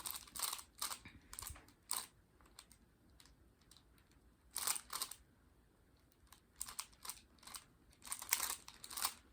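Rubik's Connected smart cube being turned quickly by hand: irregular bursts of plastic clicking and rattling from the layer turns, with short pauses between the runs of moves.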